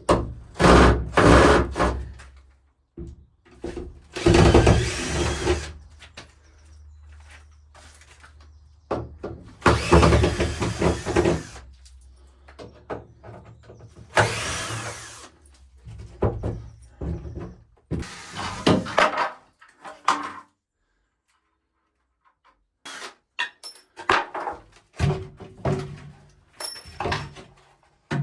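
Wooden shelving being dismantled with tools: repeated loud bursts of tool and wood noise a few seconds apart, then a run of scattered knocks and clicks after a short pause near the end.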